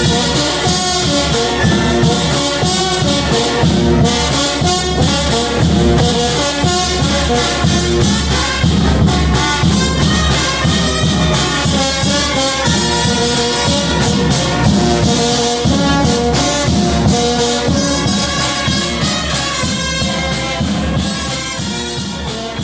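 Mexican banda brass band playing, with a bombardino (euphonium) among the brass over a steady drum beat; the music begins to fade near the end.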